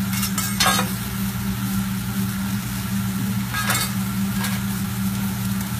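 Fried rice sizzling on a hot teppanyaki griddle over a steady low hum, with two short clatters of the chef's metal spatula, about a second in and again near four seconds.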